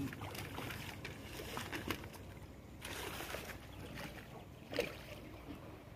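River water splashing and churning as a hooked fish is brought to the surface and scooped with a hand net, with a couple of short knocks.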